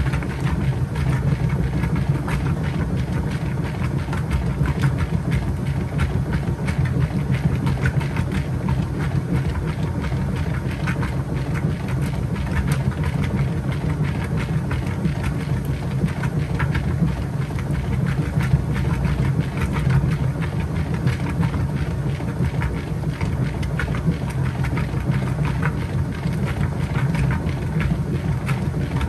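Kenmore 80 Series top-load washing machine agitating a small load of whites in the wash stage of a heavy duty cycle: a steady low motor hum with water sloshing and small irregular clicks.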